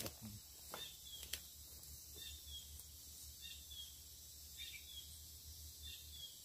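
Faint outdoor ambience with short, high chirps from small wildlife repeating every second or so, and a few soft knocks in the first second and a half.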